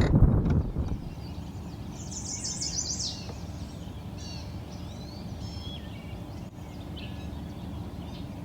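Songbirds singing: a quick, high warbling run about two seconds in, then scattered short chirps, over a steady low background rumble. A louder low rumble fades out within the first second.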